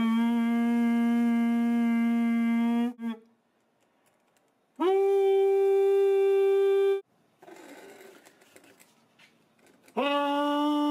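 A man's voice holding three long, steady notes into a short plastic tube: a low note of about three seconds, a higher one of about two seconds, then a middle-pitched one starting near the end, each sliding up slightly as it begins.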